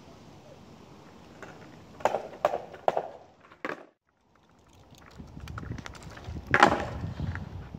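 Skateboard on asphalt during freestyle tricks: a few sharp clacks of the deck and wheels hitting the ground two to three seconds in, then, after a short gap, the wheels rolling with a low rumble and one loud clack near the end.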